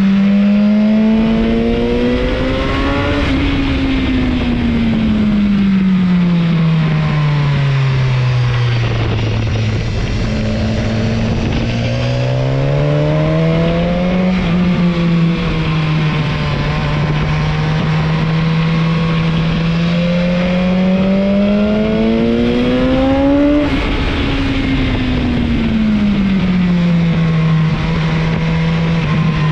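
Motorcycle engine running under way, its pitch rising and falling again and again as it speeds up and eases off. The pitch drops sharply about two-thirds of the way through. A steady rushing noise runs underneath.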